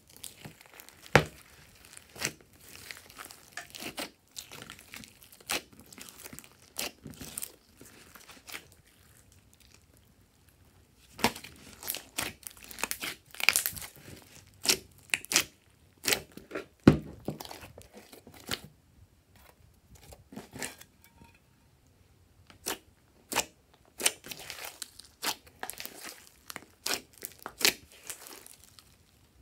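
Hands squishing and kneading a large mass of mixed glossy and fluffy slime, giving irregular sticky pops and crackles, with a couple of brief lulls.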